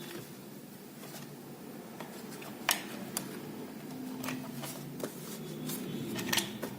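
A series of sharp clicks and light clattering of hard parts being handled, about six distinct knocks in the middle and latter part, over a faint low hum.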